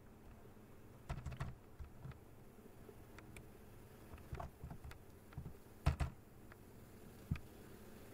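Computer keyboard keys pressed in short, scattered bursts, a few keystrokes at a time with pauses between; the loudest pair comes about six seconds in.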